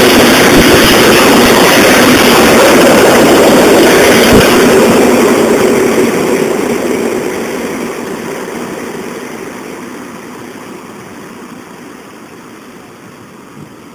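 SKM electric commuter train running past close by on the rails, a loud steady rumble that fades away gradually from about five seconds in as the train pulls away.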